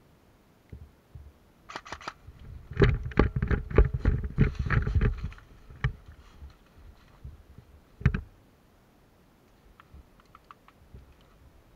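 A run of sharp clicks and knocks, thickest in a dense cluster of thumps and rattling a few seconds in, with single loud clicks near the middle and lighter ticks near the end.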